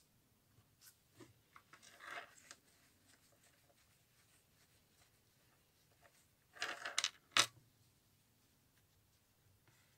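Small metal clicks and clinks of a silver Pandora charm bracelet being handled, charms knocking against the chain. A light flurry comes about two seconds in, and a louder one about seven seconds in that ends in a sharp click.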